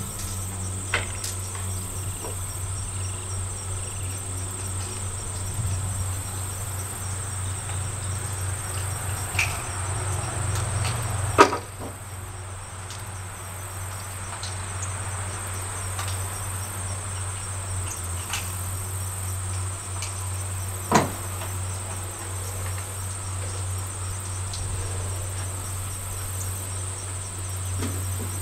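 Insects chirring steadily in a high, fine pulsing band over a low steady hum. A few sharp cracks cut through, the loudest about halfway through and another about three quarters of the way.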